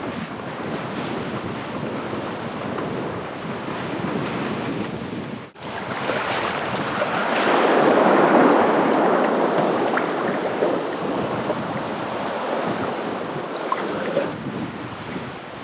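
Choppy water rushing and splashing along the hull of a sailboat under way, mixed with heavy wind buffeting the microphone. A sudden brief dropout comes about five and a half seconds in, after which the rush of water swells louder for a few seconds and then eases.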